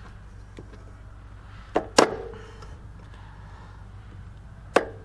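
Sharp metallic clicks of pliers gripping and snapping at a steel split pin as it is worked out of its hole: two clicks about two seconds in, the second with a brief metallic ring, and another near the end. A low steady hum runs underneath.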